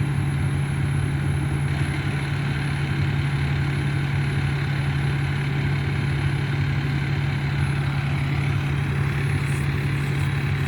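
Large engine idling steadily, a low, even hum with no revving.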